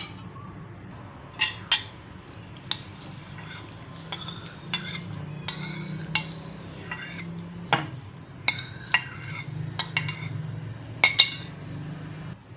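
A metal spoon clinking and scraping against ceramic bowls as cubes of set jelly are spooned and tipped from one dish into another: irregular sharp clinks, the loudest pair about eleven seconds in, over a low steady hum.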